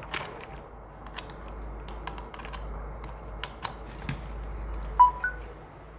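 Scattered light clicks and taps from handling a phone, a car charger adapter and its test gear, over a faint steady low hum. A short two-note electronic beep, rising in pitch, about five seconds in.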